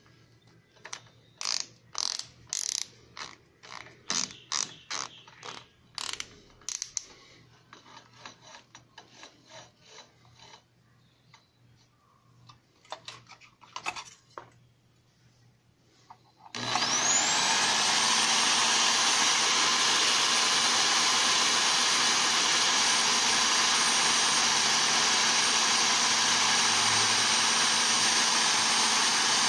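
Hand-tightened keyless drill chuck clicking and rattling as it is closed around a rod. About 16 seconds in, the electric drill starts, its whine rising quickly, and it runs steadily at full speed, spinning the rod in the jig.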